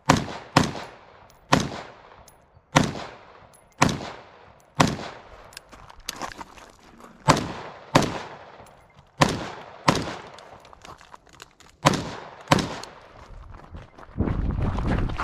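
Gunshots from a competitor shooting a 3-gun match stage: about fifteen single shots at an uneven pace of roughly one a second, each sharp and briefly ringing out. Near the end comes a second of rough, steady noise.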